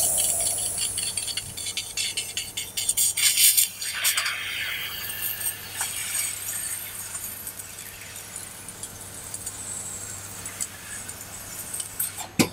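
Oxygen-assisted cutting of 8 mm mild steel on a 1.5 kW fiber laser cutter: a crackling hiss of assist gas and burning steel throwing sparks, loudest in the first few seconds, then steadier, over a steady low hum. The hiss stops abruptly near the end.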